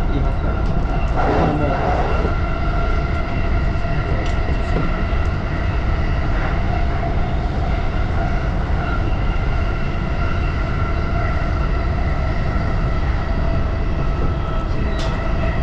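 E233-series Chuo Line Rapid electric train running, heard from inside the front car: a steady rumble of wheels on rails with a level, even whine from the running gear. A light click near the end.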